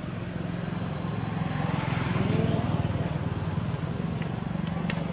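An engine running steadily with a low, even hum, with a few faint, short, high ticks in the second half.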